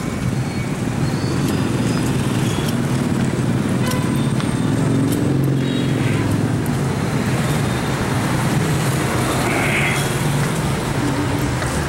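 Steady street traffic noise: vehicle engines running and passing, a continuous low rumble.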